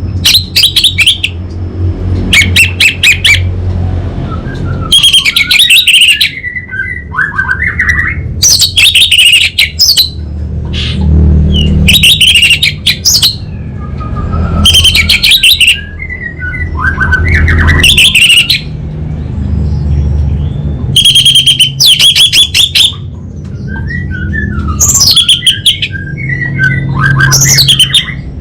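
Orange-headed thrush singing loudly in repeated phrases, about every three seconds: bursts of rapid, harsh crackling notes alternating with short falling whistles.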